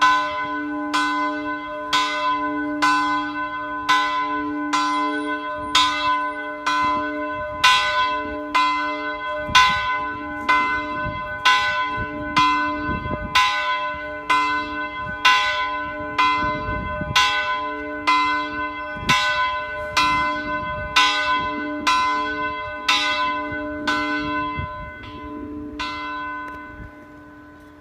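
Church bell being rung, struck at an even pace of about one stroke a second. The strokes stop shortly before the end and the last one rings on and fades away.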